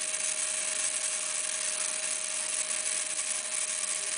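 Genius CP micro RC helicopter's electric motor and gear train spinning the rotor head at a constant speed: an even whine over a steady hiss.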